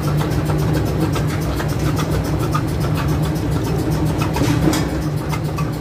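Steady low hum of running engine-room machinery, with faint clicks and knocks through it.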